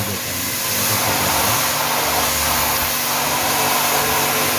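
Water jet spraying onto the fins of an outdoor AC condenser coil during a water wash: a loud, steady rushing hiss over a low motor hum.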